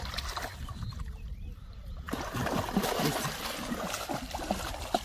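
Shallow river water splashing and trickling as a bamboo plunge-basket fish trap is lifted and swept through it. The splashing starts suddenly about two seconds in.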